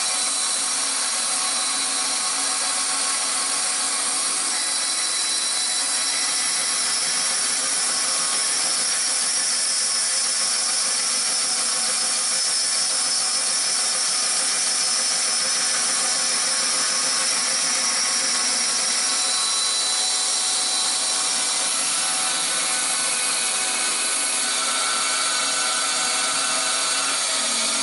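Bandsaw running steadily while cutting shapes out of 3/4-inch plywood, an even motor hum under the blade's sawing noise.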